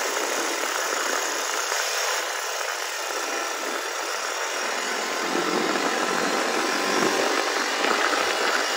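Honda ATV engine running as the quad is ridden along a dirt track, heard with a steady hiss; it grows a little louder in the second half.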